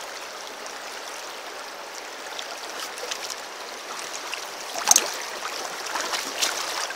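Shallow river water flowing and rippling steadily over riffles. A sharp click or knock stands out about five seconds in, with a few fainter ones after it.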